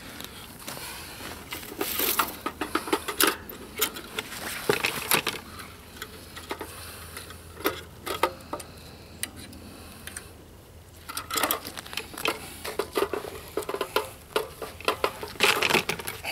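Rustling of a carp weigh sling and unhooking mat as the sling is folded around a fish and its straps are clipped onto a dial scale, with sharp clicks and clinks from the strap clips, in several flurries with quieter stretches between.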